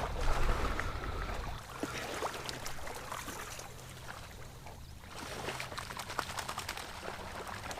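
A retrieving dog splashing and rustling through shallow marsh water and reeds on a retrieve, with irregular sloshes and crackles. A low rumble stops about a second and a half in.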